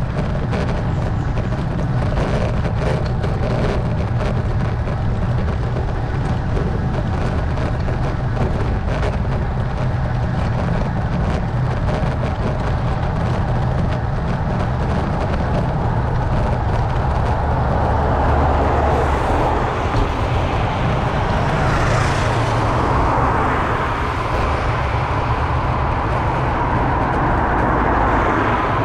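Steady low rumble of wind and road noise on a bicycle-mounted camera's microphone. Motor traffic passes close by in the last third, swelling into a broad whoosh that is loudest a little after the middle of that stretch.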